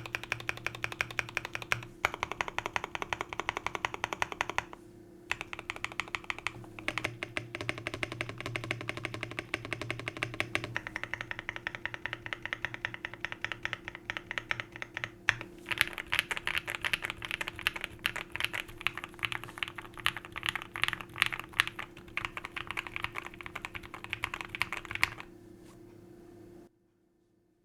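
Typing on a Tofu65 2.0 mechanical keyboard with Gateron Smoothie linear switches: a fast, dense run of keystroke clacks with a couple of brief pauses, stopping shortly before the end.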